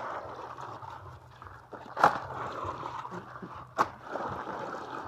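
Water sloshing and splashing in a plastic basin as live land crabs are swished about and washed by hand, with two sharp clacks, about two seconds in and again near four seconds.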